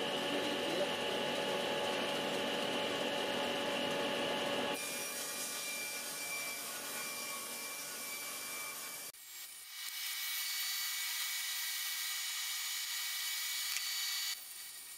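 SawStop table saw running and ripping a long strip off a sheet of MDF fed against the fence: a steady blade and cutting noise whose character changes abruptly about five seconds in and again about nine seconds in.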